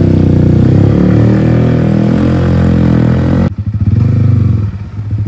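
Yamaha R15's single-cylinder engine running loud through an aftermarket silencer while riding. About three and a half seconds in the sound cuts off suddenly and drops to a slower, pulsing engine beat.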